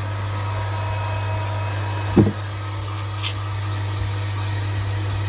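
Steady low electric hum of a running mains air pump, with a brief short knock about two seconds in.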